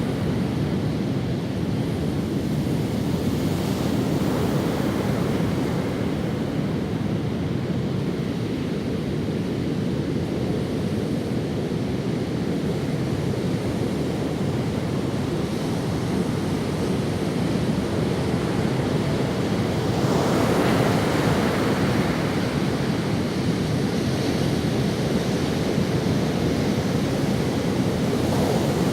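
Ocean waves washing up on a sandy beach, a steady surf rush with one wave breaking louder about two-thirds of the way through.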